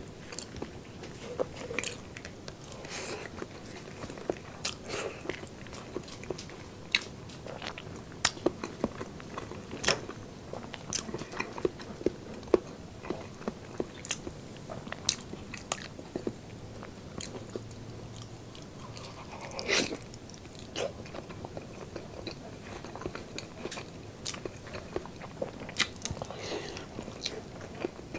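Close-up mouth sounds of a person chewing and biting braised pork knuckle: irregular clicks and smacks, with a louder chewing sound about two-thirds of the way through.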